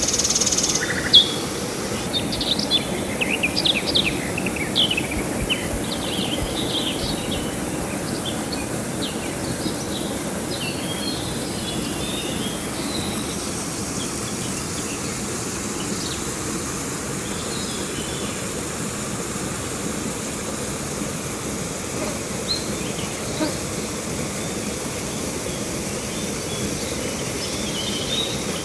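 Steady rush of river water with small birds chirping: many calls in the first several seconds, then only a few scattered ones.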